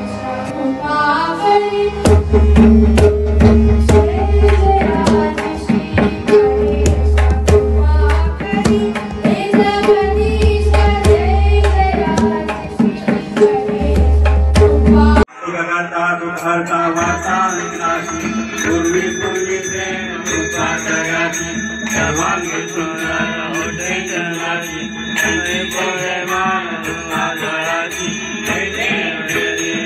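Devotional bhajan: a woman's voice singing over a harmonium's held tones, with a dholak beating a quick steady rhythm. About halfway through, the sound cuts to a group aarti song, sung over a steady high ringing.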